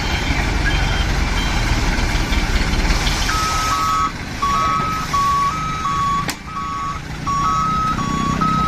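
Electronic two-tone beeping, a higher and a lower note alternating about every half second, starting about three seconds in, over a steady noisy rumble.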